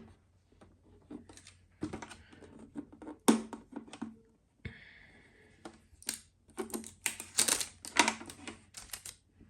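Plastic packing tabs being pulled off a dehumidifier's water reservoir: irregular plastic clicks, taps and rustling, thickest in a quick flurry near the end.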